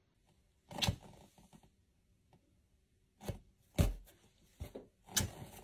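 A handful of short, soft mouth sounds from a person's pursed lips, each brief and spaced about a second apart, with quiet in between.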